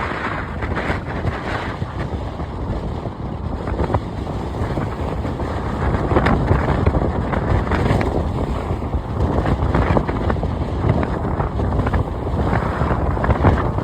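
Ocean surf breaking and washing up the beach, swelling louder around the middle and again near the end, with wind buffeting the microphone.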